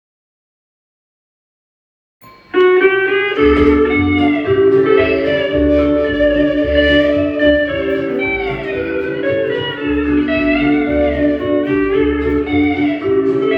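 Background music: after about two seconds of silence, a guitar-led piece begins, with a gliding melody over a steady bass beat.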